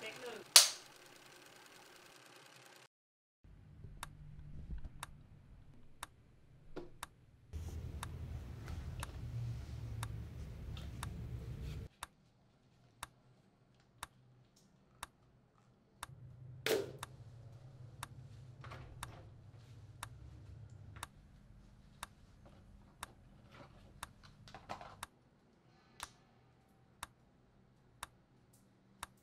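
A clock ticking steadily, about once a second, over a low hum that comes and goes. A sharp, loud hit sounds about half a second in, and a single louder knock comes about two-thirds of the way through.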